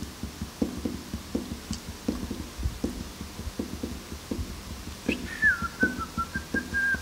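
A person whistling a short wavering tune that begins about five seconds in, starting a little higher, dipping, then holding steady. Beneath it, a steady series of soft ticks at about four a second.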